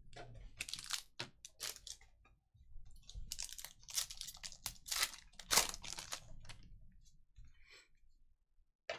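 Foil wrapper of a Panini Contenders football card pack crinkling and tearing as it is ripped open by hand. It comes in a short spell near the start, then a louder stretch of a few seconds in the middle.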